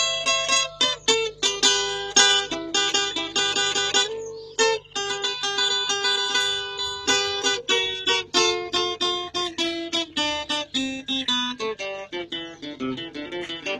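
Acoustic guitar music: quickly picked single notes over a lower line that steps downward in the second half.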